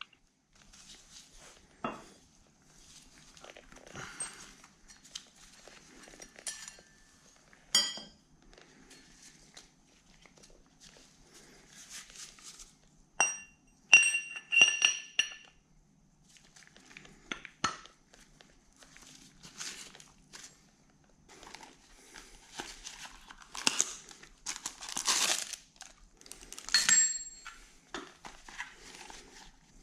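Packaging crinkling and small metal machine parts clinking as they are handled on a workbench, with a few sharp metallic clinks that ring briefly about halfway through.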